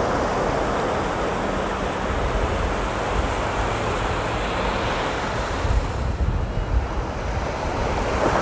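Surf breaking and washing up on a sandy beach: a steady rush of waves. Wind buffets the microphone with low rumbling gusts in the second half.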